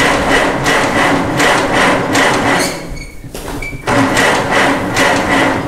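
Farmall Super A's four-cylinder gasoline engine being cranked over by its electric starter in deep cold, turning in an even rhythm of about three compression pulses a second without firing. The cranking stops briefly a little past halfway, then starts again. It will not catch because the magneto is giving no spark.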